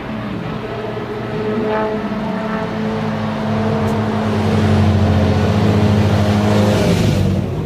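BMW E9 3.0 CSL Alpina race car's straight-six engine running at steady, fairly even revs as the car comes through a corner and passes close by. It grows louder as it nears, with a rush of noise near the end as it goes past.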